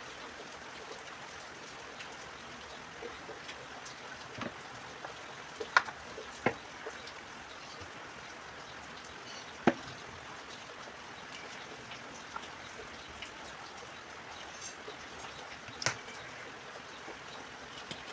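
Steady rain falling, with a few sharp drips or taps standing out above it.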